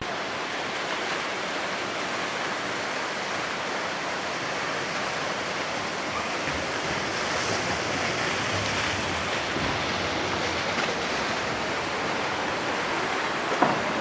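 Waterfall roaring steadily: the even rush of water falling onto rock. Two brief knocks come near the end.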